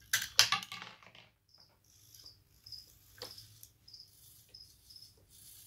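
Rattling clicks from a Johnny 5 replica robot's servo-driven mechanism as it tries to fire a plunger from its shoulder toolbox, loudest in the first second, then one sharp click about three seconds in. Crickets chirp in the background.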